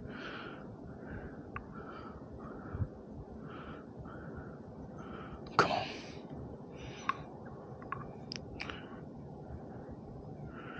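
Quiet sloshing and small splashes of water around a mulloway held by the tail at the surface while it is revived before release, with one louder splash about halfway through and a few drip-like ticks.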